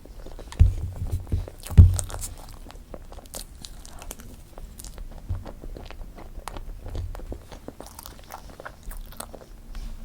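Close-miked eating of strawberry fresh-cream cake: bites and chewing with many small wet mouth clicks, and two louder low thumps in the first two seconds.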